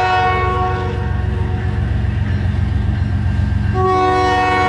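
CN freight train's diesel locomotive horn sounding: a long chord that cuts off about a second in, then a second long blast starting near the end, over the steady low rumble of the locomotive and train passing.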